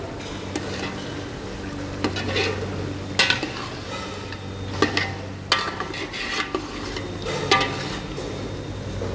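Metal spoon stirring chicken cooking in masala in an aluminium pot, scraping and knocking against the pot about six times at uneven intervals over a steady sizzle. A steady low hum runs underneath.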